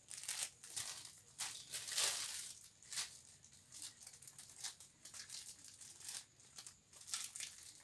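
White plastic courier mailer bag crinkling and rustling as it is handled and turned over in the hands, in many short irregular rustles.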